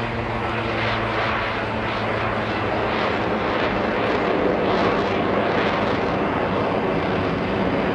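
Taperwing Waco biplane with an underslung jet engine in aerobatic flight, its engines making a steady, dense roar that swells a little around the middle.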